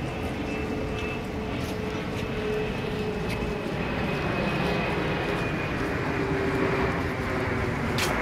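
Engines of slow-moving vehicles, a truck and an escort van crawling along the street, giving a steady low rumble with a faint held whine. A single sharp click near the end.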